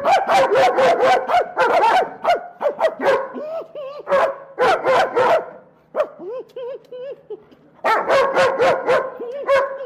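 A German Shepherd and a man barking at each other in a bark-off, the man imitating a dog. The barks come in bursts: a rapid run over the first three seconds, a few more around four to five seconds in, a lull, then another fast run near the end.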